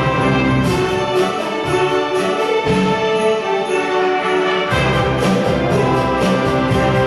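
Live orchestra playing, with brass to the fore; the low instruments drop out about a second and a half in and come back in full near the five-second mark.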